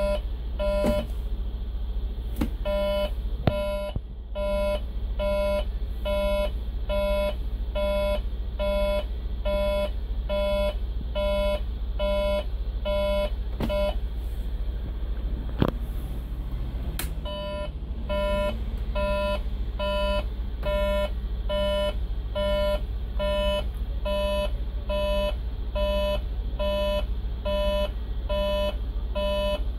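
Mercedes-Benz Integro coach's turn-signal beeper sounding a steady run of beeps in time with the flashing indicator. The beeps pause for a few seconds in the middle, with a couple of clicks as the indicator is switched from left to right, then resume. The coach's diesel engine idles as a low hum underneath.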